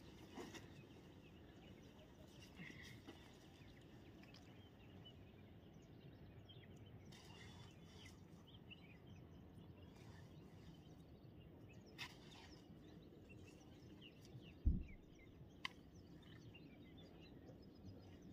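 Near silence: faint outdoor background noise with a few faint bird chirps and scattered light clicks. About fifteen seconds in there is one brief low thump.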